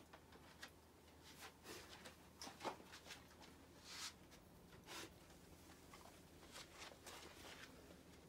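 Near silence with faint, scattered short rustles, taps and sniffs from a Japanese Akita puppy moving about on a carpeted floor and searching with her nose. The loudest is a little under three seconds in.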